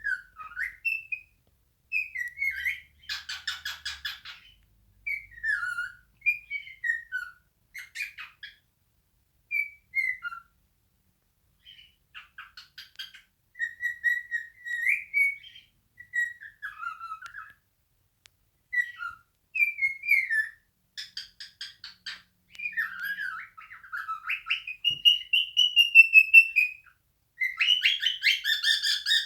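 Male cockatiel singing its natural song: short whistled phrases that glide up and down, broken by harsh buzzy notes, with one long rising-and-falling whistle near the end as the loudest part.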